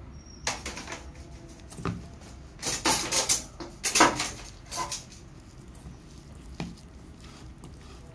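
Metal spoon scraping and clinking against an aluminium pot as rice and fried fish are mixed, in irregular strokes, loudest about three to four seconds in.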